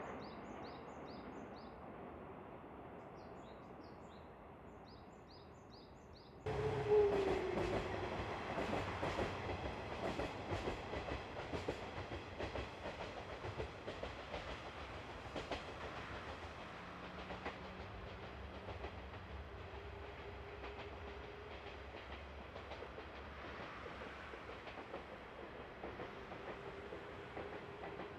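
Birds chirping over a quiet background, then an abrupt change about six and a half seconds in to a KiHa 110 series diesel railcar train running: a short falling tone as it begins, then the diesel engine's hum with the wheels clicking over rail joints, the clicks thick at first and thinning out later.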